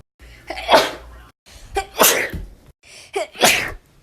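Three human sneezes, each a short voiced intake building into a sharp burst, about a second and a half apart with brief dead-silent gaps between them.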